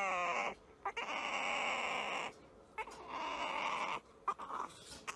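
A puppy suckling from a baby bottle, making breathy, squeaky noises in three spells of about a second each, with short pauses between.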